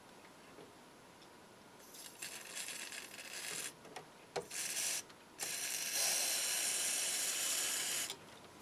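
Aerosol can of CRC contact cleaner hissing in several spurts, the longest lasting about two and a half seconds, as it is sprayed into the receiver's push-button speaker switches to clean them. A couple of small clicks come between the spurts.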